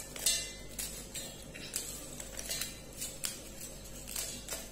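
Marie Gold biscuits being snapped and broken by hand over a stainless steel bowl: a string of sharp crisp cracks, about two a second, with pieces dropping into the bowl.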